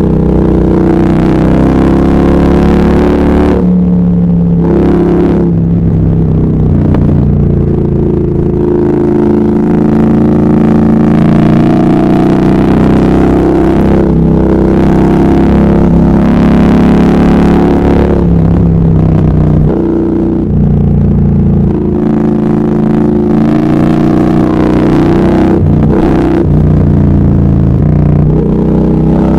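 Triumph Speed Twin 1200's 1200 cc parallel-twin engine running under way. Its note rises and falls several times as the throttle is opened and closed.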